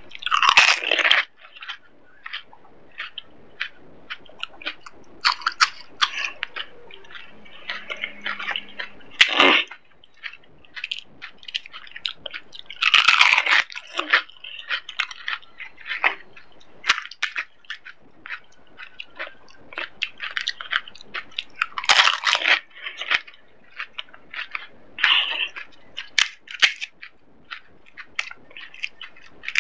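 Crisp pani puri shells crunching as they are bitten and chewed, with wet chewing and small clicks in between. A loud crunch comes every few seconds, about six times.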